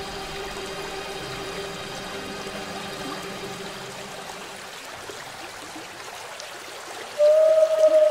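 Ambient soundtrack: a watery hiss under a few faint steady drone tones that fade out, then a loud held note enters about seven seconds in.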